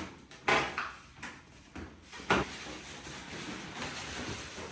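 Latex 260 modelling balloons rubbing and rustling against each other as they are handled and tied together, with a few short scrapes.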